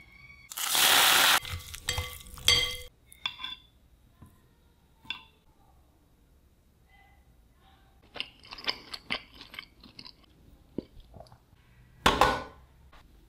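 Kitchen handling sounds of food preparation: a loud burst of noise about half a second in, two ringing clinks of dishware about two seconds in, then scattered light clicks and crunches, with a dense run of them near the middle and another noisy burst near the end.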